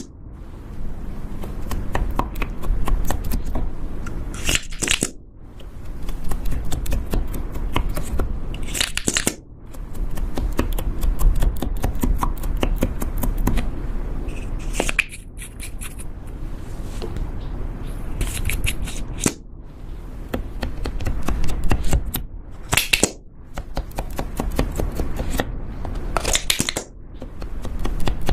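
Slime being squeezed and worked by hand: a dense run of small crackles and pops, with a short, louder squelch every few seconds.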